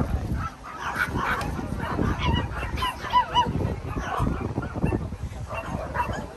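Small dogs yapping repeatedly in short, sharp barks and yips, with two clear high yips a little after halfway.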